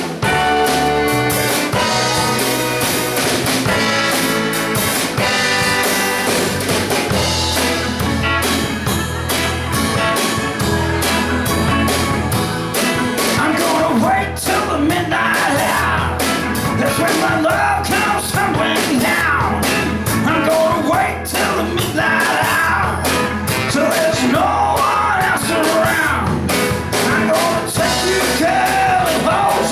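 Live band playing an up-tempo soul number with drums, bass and a repeating riff. A singer's vocal comes in about halfway through.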